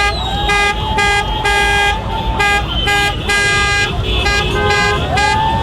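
Car horns honking in short repeated blasts, about two a second, with people shouting and whooping in the street.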